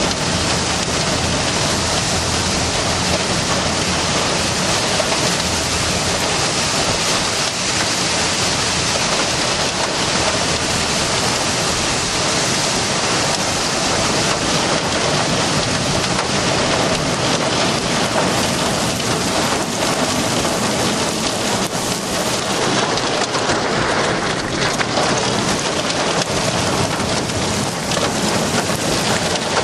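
Heavy rain driving against a car's roof and windows during a severe thunderstorm, heard from inside the cabin as a loud, steady, unbroken hiss.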